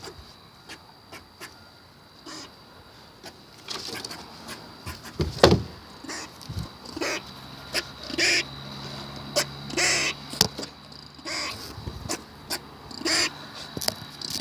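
Squirrel calling: a few faint clicks, then from about four seconds in a run of short, harsh calls, one every second or two.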